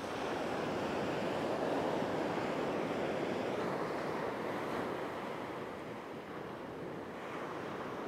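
Sea surf washing onto the shore, a steady rushing that swells over the first couple of seconds and eases slightly around six seconds in, with some wind.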